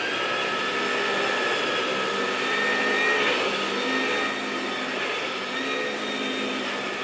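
Battery-powered toy vacuum cleaner running: a steady small-motor whine with a hiss of air.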